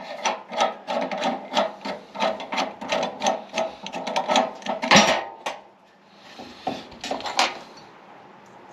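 Hand ratchet wrench clicking in quick, even strokes, about three a second, as a threaded fitting is turned. One louder scrape comes about five seconds in, then a few weaker strokes before it stops.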